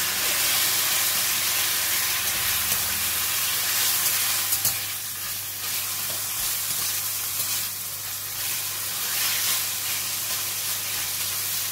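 Marinated chicken pieces sizzling in hot oil in a stainless steel wok, turned and spread with a metal spatula that scrapes lightly against the pan. The sizzle is loud and steady, easing a little about halfway through.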